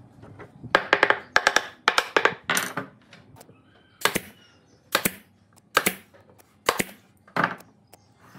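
Pneumatic nail gun firing nails through wooden slats into a round wooden base, about ten sharp shots, several in quick succession in the first few seconds and then roughly one a second.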